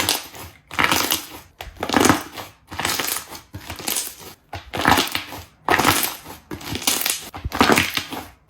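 Slime being squeezed and pressed by hand, making crackling, squelching bursts about once a second.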